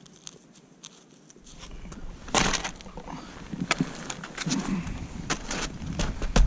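Ski touring gear handled on snow. About two seconds in there is a loud scrape, then a scatter of short clicks and knocks as the skis and poles are set down and moved.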